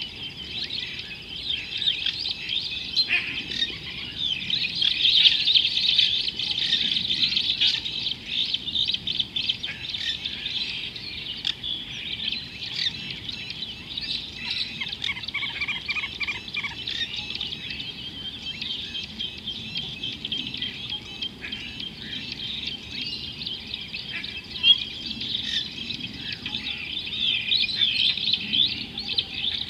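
Dense chorus of many birds chirping and calling together, with a fast trill of repeated notes about fifteen seconds in.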